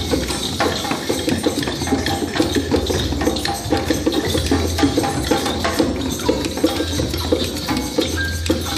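A group playing small hand percussion together, wooden clappers and sticks, shakers and djembe hand drums, in a dense, unsynchronised clatter of taps and clicks with no steady beat.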